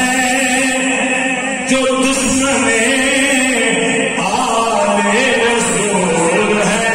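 A man chanting a manqabat, an Urdu devotional poem, amplified through a microphone, in long held melodic lines that bend slowly in pitch.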